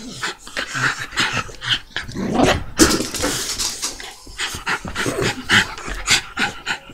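Dog panting: quick, short breaths repeated several times a second, with a louder noisy stretch near the middle.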